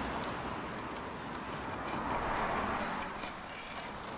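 Steady road and engine noise heard inside a moving car's cabin, with a few faint clicks.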